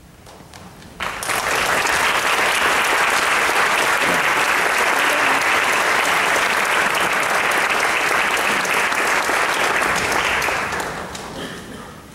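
Concert hall audience applauding: the clapping breaks out suddenly about a second in, holds steady, and dies away over the last two seconds.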